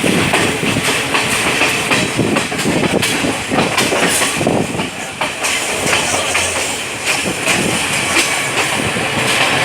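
Train passing close by, a steady rushing rumble with the wheels clattering irregularly over the rail joints.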